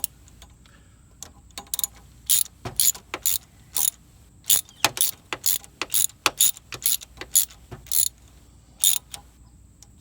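Socket ratchet clicking in short, irregular strokes while a new spark plug is run down into the cylinder head of a 1998 Ford Escort's 2.0 litre four-cylinder, about twenty sharp clicks in all.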